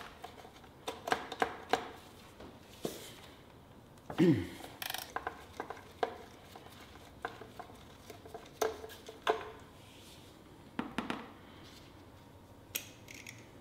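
Hand tools clinking and knocking on metal as the oil drain plugs are removed from a Yamaha YFZ450R's engine. There is one short sound falling in pitch about four seconds in, louder than the rest.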